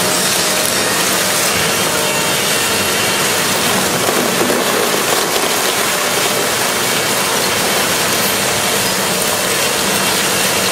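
Satrind electric fan running: a steady, loud rushing noise with a faint hum underneath.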